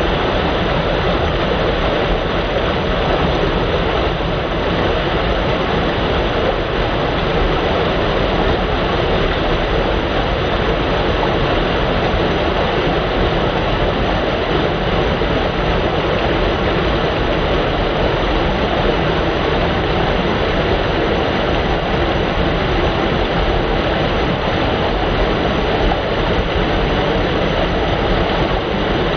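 Waterfall: a loud, steady, even rush of falling water that does not change.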